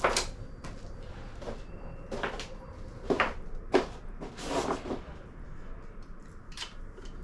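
Hand tools and metal engine parts being handled: about half a dozen irregular clicks, knocks and short scrapes as a wrench is worked on the top-end bolts of a Harley-Davidson Twin Cam engine.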